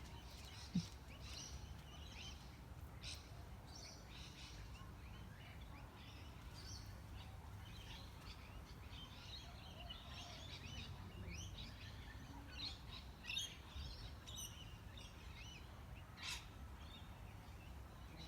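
A flock of birds chirping, with many short high calls overlapping, busier in the second half, over a low steady background rumble. A short low thump about a second in.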